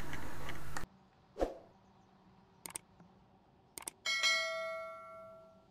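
YouTube subscribe-button animation sound effect: a brief pop, two mouse clicks, then a notification bell dings once and rings out for about a second and a half. A steady hum cuts off just under a second in.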